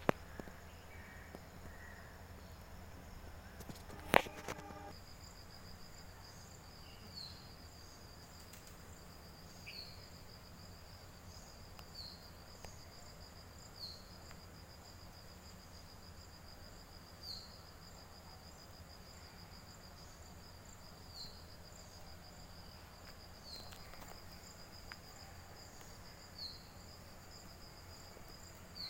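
A steady high-pitched insect trill that starts about five seconds in and holds, with a short falling chirp every few seconds. There is one sharp click just before it starts, over a faint low rumble.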